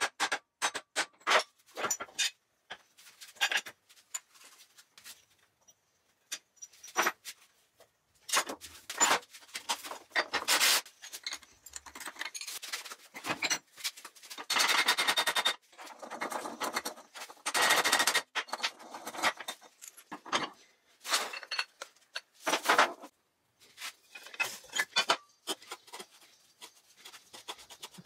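Metal workshop noises: sharp hammer blows on a steel gearbox shaft and clanks of metal parts, with several noisy bursts a second or two long.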